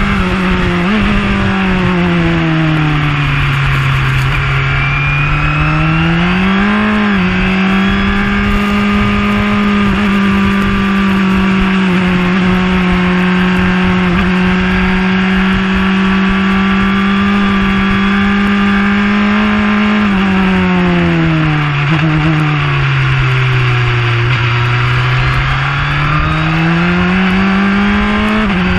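Onboard sound of a JAF-F4 formula car's four-cylinder engine running at a steady high pitch, twice falling as the car slows and rising again as it accelerates. A constant hiss of spray and wind runs underneath.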